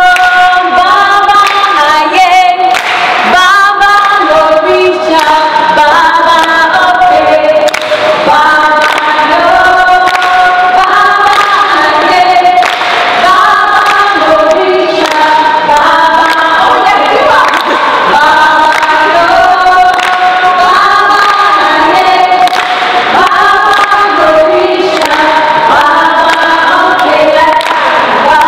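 A large group of voices singing a short melodic phrase in unison, repeating it over and over.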